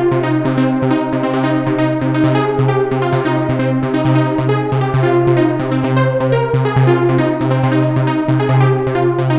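Sequential Trigon 6 analog polysynth playing its 'Dippy Chords' preset: rapid, evenly repeating chord stabs over a steady low bass note, with the chords changing every few beats.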